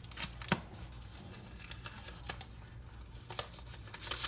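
Paper and packaging being handled as a folded handwritten note is taken out of an opened mail package: soft rustling with a few light clicks, the sharpest about half a second in.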